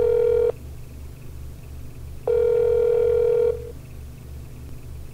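Telephone ringing as a call goes through: a steady single-pitched tone repeating about a second on and under two seconds off, with one ring ending just after the start, a full ring in the middle, and the next ring beginning at the very end.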